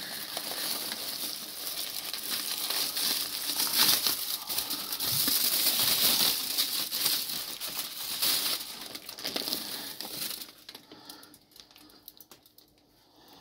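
Aluminium foil crinkling and crackling as it is pulled off a foil-wrapped fish-shipping bag, dying down about ten seconds in to a few faint crackles.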